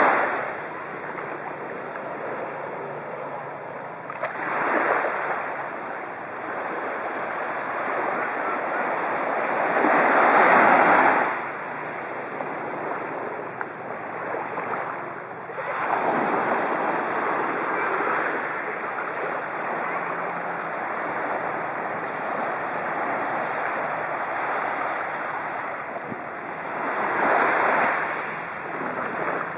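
Small sea waves washing onto a sandy beach, with a steady rush of surf that swells louder four times as bigger waves come in.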